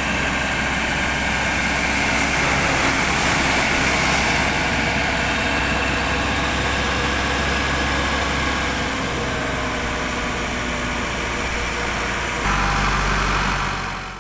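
Tow truck engine running steadily while its winch cable pulls a car out of a ditch. About twelve seconds in, the sound steps up, louder with more low rumble.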